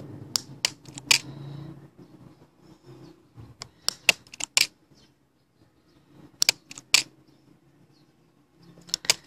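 Plastic shutter-style clicker on a camera-shaped View-Master 3D toy viewer pressed repeatedly, advancing the pictures. The sharp clicks come in small groups of two to four, about every two to three seconds.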